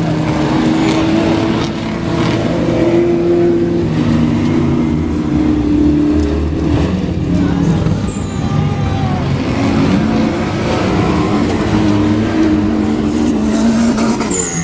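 Off-road race vehicles' engines revving hard on a dirt course, the pitch rising and falling as they accelerate and back off.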